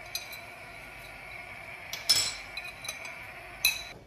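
Utensils clinking and knocking against a frying pan while masala is stirred into a thick curry gravy, a handful of sharp clinks with the loudest about two seconds in and near the end, over a steady low hiss.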